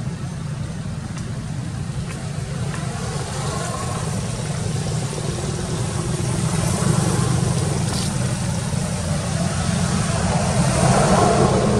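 A motor vehicle's engine running steadily, a low continuous hum that swells a little in the second half.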